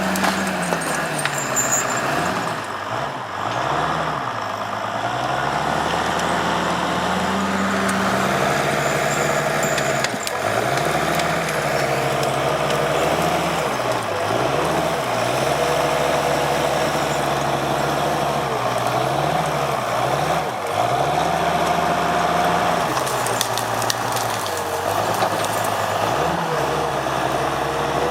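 Diesel engine of a Timberjack skidder working hard, its speed dipping and picking back up again and again, with a fainter whine above it at times.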